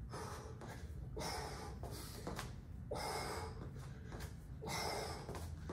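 A man breathing out sharply in short hissing bursts, about one a second, with each strike as he shadowboxes a set of knee strikes.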